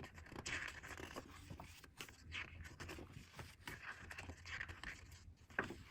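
Faint paper rustling and handling as the glossy pages of an album photobook are turned, a few soft rustles a second or so apart.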